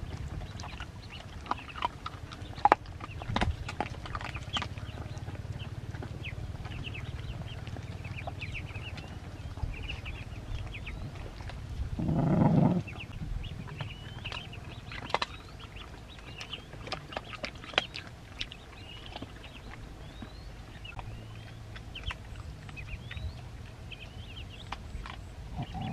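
Ducklings peeping steadily in short chirps while puppies eat from a wicker basket, with scattered clicks and smacks from their chewing. One short, louder low sound comes about halfway through.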